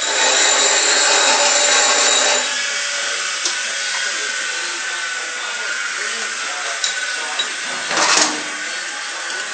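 Birmingham metal lathe running under power. It is loudest for the first two seconds or so, with a high whine, then settles to a steadier running noise. There is a short loud burst about eight seconds in.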